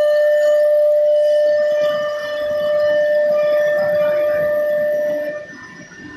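CNC router spindle whining at a steady high pitch, with rough machining noise underneath from about a second and a half in; the whine stops about five seconds in.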